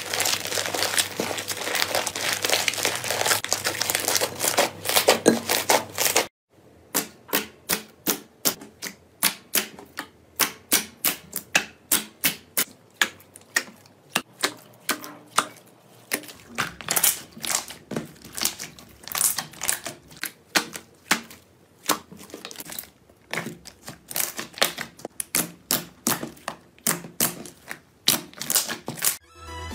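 Hands squishing slime: dense crackling as a fluffy white slime is kneaded, then, about six seconds in, sharp clicking pops, two or three a second, as fingers press and poke into a thick green slime.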